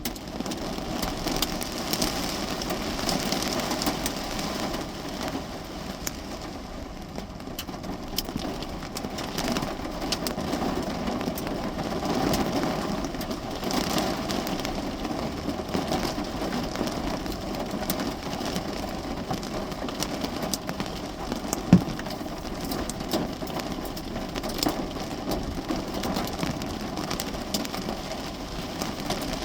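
Rain pelting the roof and windows of a parked car, heard from inside the cabin: a steady hiss with many small ticks of drops striking the car. One sharp knock stands out about two-thirds of the way through.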